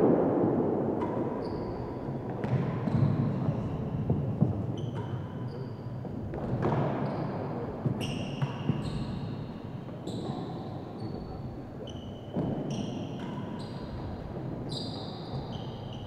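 Real tennis rally: sharp cracks of the hard ball off rackets and the court walls, about one or two a second, each echoing in the large hall, several followed by a brief ringing tone.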